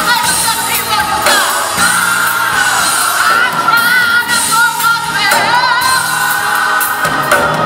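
Gospel choir singing live, with a lead singer's high, wavering runs riding above the sustained choir.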